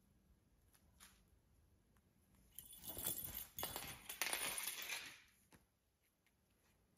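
Cats scrambling on a felt play mat: a burst of rustling and scratching of the mat's fabric starts about halfway in and lasts around two and a half seconds.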